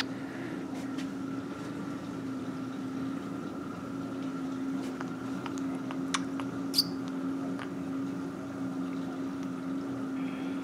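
A steady machine hum with a constant low tone, and two short clicks about six and seven seconds in.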